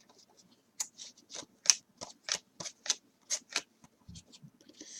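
Glossy Topps Chrome trading cards being slid off a stack one at a time, each card giving a short flick, about three a second; the chrome cards are sticking to one another.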